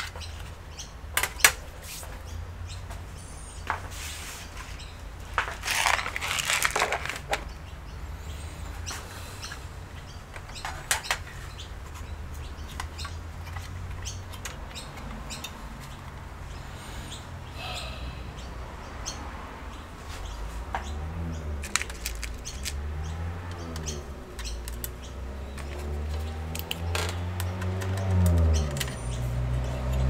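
Hands handling a metal hard-drive caddy and its screws: scattered clicks, taps and rattles. Over the last third a small electric screwdriver whirs in short runs on the caddy's screws.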